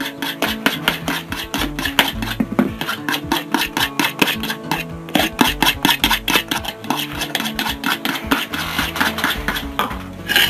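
Eggs beaten by hand with a spoon in a plastic bowl: a rapid, even clicking of the spoon against the bowl, about four to five strokes a second, over background guitar music.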